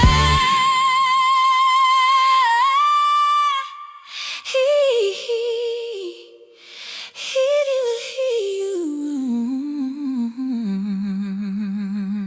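End of a song: the beat drops out and a voice hums a wordless melody, holding a high note, then winding downward in small turns to finish on a long, low held note.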